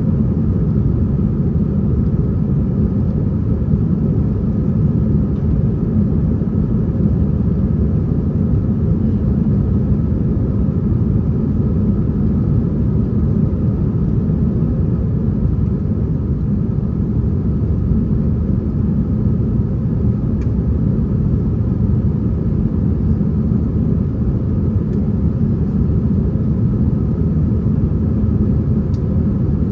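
Steady low rumble of engine and airflow noise inside an Airbus A321-231's passenger cabin, with its IAE V2500 turbofans running. There is a faint hum of steady tones above the rumble.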